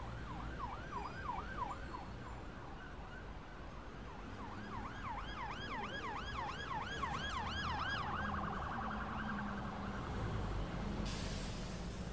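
Emergency vehicle siren in yelp mode, sweeping up and down about three times a second, breaking off for a couple of seconds, then switching to a faster warble. A low rumble runs underneath, and a hiss comes in just before the end.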